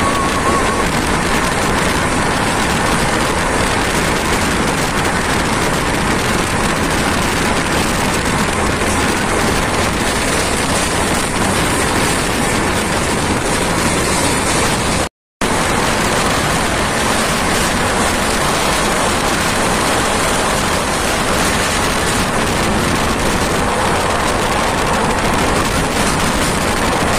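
Steady rush of wind and running noise from a moving passenger train, heard from its open doorway. It cuts out for a moment about halfway through.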